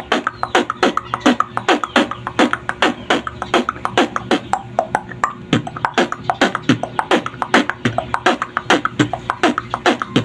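Solo beatboxing: a fast, even run of mouth-made drum hits, about four or five a second, many sliding down in pitch like kicks, over a steady held tone.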